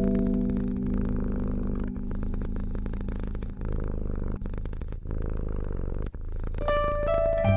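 A cat purring close to the microphone, a steady run of rapid low pulses. Lingering music notes fade under it at the start, and plucked music notes return near the end.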